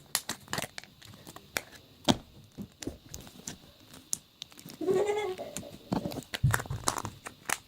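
Slime being handled and squeezed, making many small sticky clicks and pops. A short pitched, voice-like squeak comes about five seconds in.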